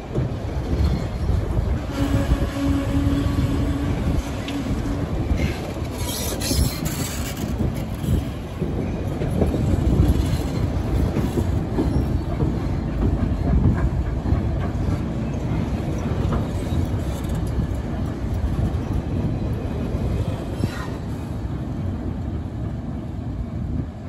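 Passenger coaches rolling past at speed on a steel deck viaduct: a steady rumble of wheels on rail with clicks at the rail joints. There are short wheel squeals, one held for a few seconds about two seconds in and a sharper, higher one around six seconds in.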